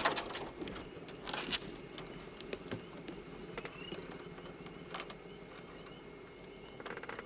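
Scattered light clicks and taps of hands and pliers working a snagged fish free of a fishing net, with two short faint squeaks, over a faint steady hum.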